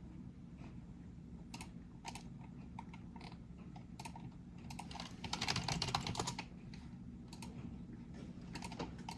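Typing on a computer keyboard: scattered keystrokes, then a quick flurry of typing about five seconds in.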